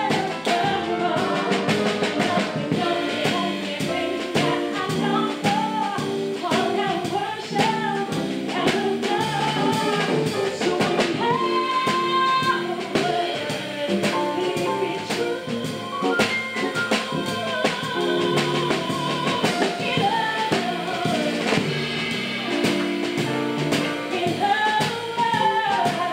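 Female jazz vocalist singing live with a small band: guitar, upright double bass and drum kit.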